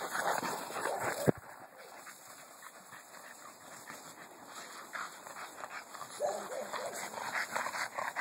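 Boston terriers playing with a beach ball, panting and whimpering, over scattered scuffling noises. A sharp knock about a second in.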